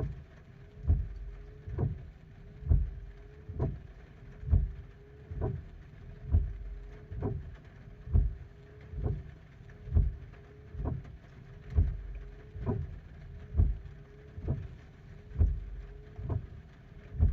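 Regular low thumps, a little over one a second and very even in spacing, over a steady low hum.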